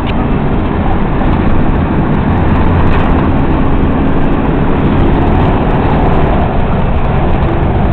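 Toyota Hilux driving fast off road: a steady, loud rumble of engine and tyres over rough ground.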